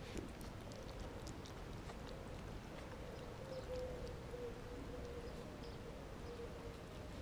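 Cat eating from a plastic tray: faint, irregular clicks of chewing, over a steady hum.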